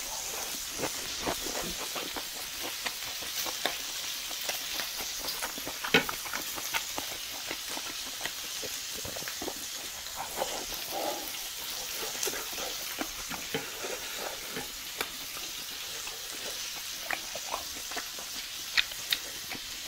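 Pork belly sizzling on a grill tray, a steady hiss, with chewing, lip-smacking and chopstick clicks over it.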